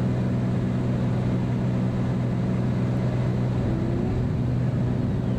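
Beechcraft Bonanza's piston engine and propeller droning steadily in the cockpit on final approach: an even, low hum with a few held tones.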